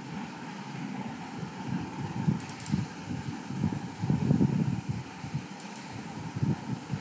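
Computer mouse clicking, a quick pair of clicks about two and a half seconds in and another pair near the end. Underneath is a low, uneven rumble that swells and fades.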